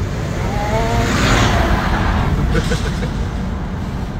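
Steady tyre and road rumble inside a moving electric car's cabin, with a double-decker bus passing close alongside: a rush of noise swelling about a second in and fading away.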